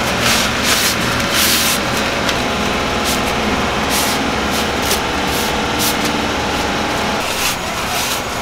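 Large pot of noodle water boiling hard on a gas burner, a steady loud roar. Over it come repeated crisp rustles as bundles of dried wheat noodles are pulled from their paper wrappers and dropped into the water.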